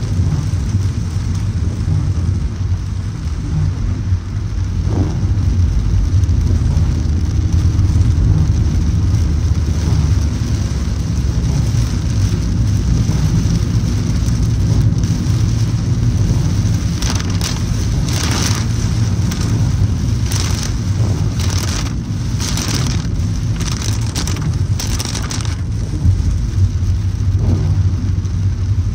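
Car driving on a wet road in heavy rain: a steady low rumble with an even hiss of rain and wet tyres. Past the middle there is a run of short, irregular swishes.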